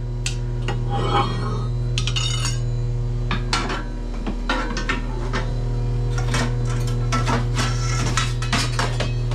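Metal oven tools clinking and scraping against steel, a quick string of clinks that gets busier about halfway through, as the ash peel is taken up to clean the ashes out of a wood-fired oven. A steady low hum runs underneath.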